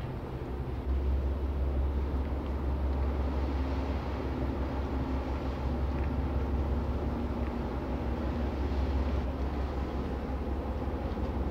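Harbour tug's diesel engines running hard as it passes, a steady low drone that grows louder about a second in, over the rush of water from its bow wave.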